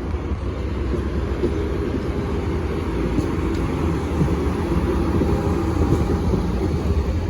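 Capitol Corridor passenger train rolling past as it pulls out of the station, a steady rumble of wheels on rail.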